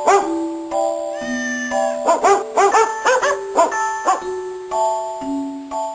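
Dog barks in rhythmic clusters set to music over held keyboard notes, a novelty barking-dog tune.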